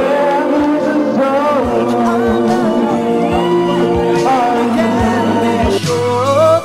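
A pop song with a lead singer over sustained chords and a steady beat.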